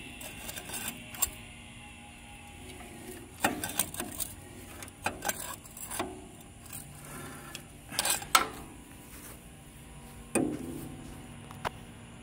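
Irregular metallic clunks and knocks as the 1963 Cub Cadet's engine is turned over, a check that it is not seized after sitting for years.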